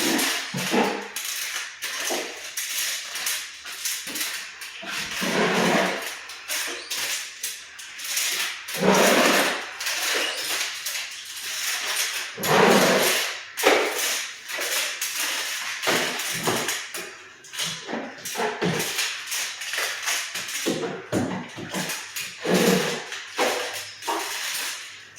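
Irregular knocking and clattering, sharp hard strikes at uneven spacing with a few heavier thuds among them.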